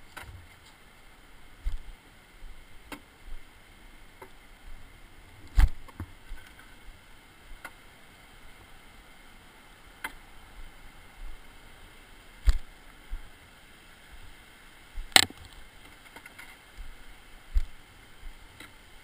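Irregular sharp knocks on rock, one every second or two, the loudest about fifteen seconds in: a kayak paddle used as a walking staff and footsteps on a stony trail, over a faint steady hiss.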